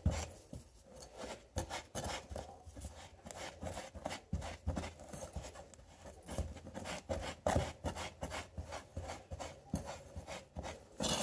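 Silicone spatula stirring and scraping a slightly damp powdered-sugar and baking-soda mix around a ceramic bowl: a run of short, uneven scrapes and taps.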